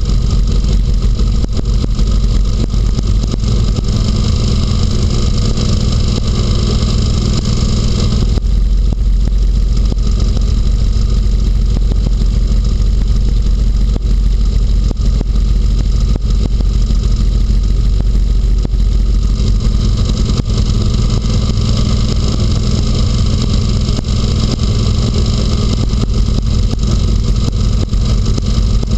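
Inflatable hovercraft's engine and lift/thrust fan running steadily while it glides over snow. The higher part of the noise eases off about eight seconds in and comes back at around twenty seconds, over a constant low rumble.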